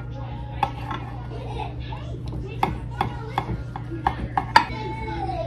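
Knife slicing through a roasted pork loin held with a fork, the blade and fork clicking and scraping against the ceramic baking dish in irregular sharp clicks, the loudest about four and a half seconds in.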